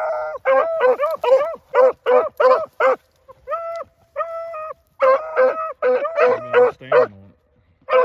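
A pack of hunting dogs giving voice while running a rabbit: quick, short barks about three a second, two longer drawn-out bawls near the middle, then more quick barking with a deeper-voiced dog joining in near the end.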